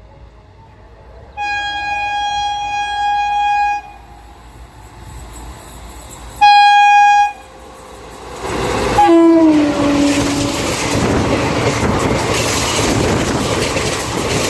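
WAP-4 electric locomotive's horn sounding a long steady blast, then a shorter, louder one, as the express train approaches at high speed. About nine seconds in, the locomotive passes with a drop in pitch, followed by the loud rush and wheel clatter of the coaches going by.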